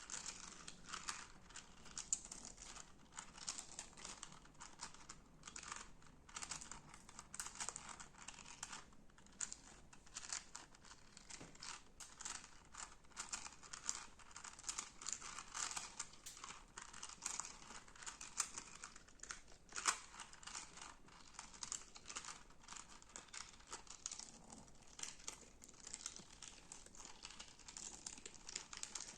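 Slime being squeezed and pressed by hand, making a continuous stream of small crackling and popping clicks.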